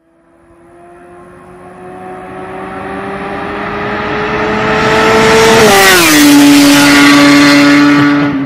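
A motorcycle approaching at high speed and passing close by. Its engine note climbs steadily and grows louder as it comes, then drops sharply in pitch as it goes past about six seconds in, and stays loud at the lower pitch afterwards.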